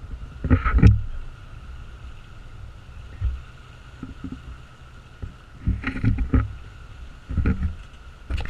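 A boat on the water: a steady low rumble with a thin steady hum, broken by three bouts of heavy thumping and splashing.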